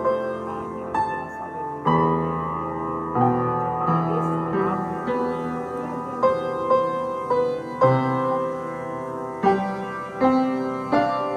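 Solo piano playing a slow melody, single notes struck one after another and ringing over sustained lower notes.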